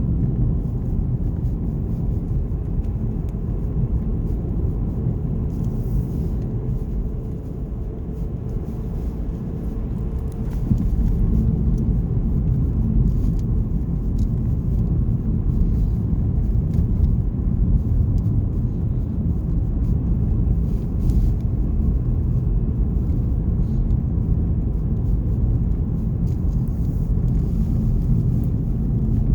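Car on the move: a steady low rumble of engine and tyre road noise, a little louder from about ten seconds in.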